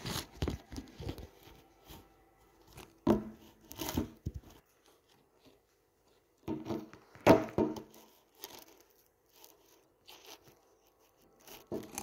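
Handling noise close to the microphone: scattered clicks and short bursts of rustling and crinkling, loudest twice, about three seconds in and again past the middle, with quiet gaps between.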